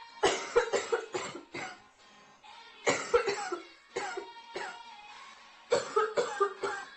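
A girl coughing nearly uncontrollably in repeated fits of several quick coughs each, with short pauses between fits, from a severe chest cold.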